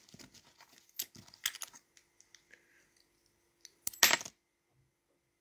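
Handling noise close to the microphone: scattered light clicks and taps, with a louder cluster of knocks about four seconds in as something is handled at the phone.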